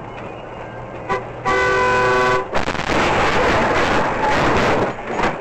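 Car horn honking: a short toot about a second in, then a steady blast lasting about a second. It is followed by about two seconds of loud rough noise over the road noise.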